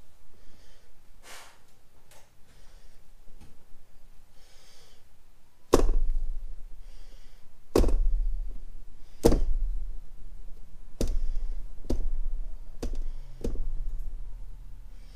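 A painted canvas knocking against the plastic tub it sits in as it is tilted by hand. There are seven knocks about one to two seconds apart, starting about six seconds in; the first is the loudest.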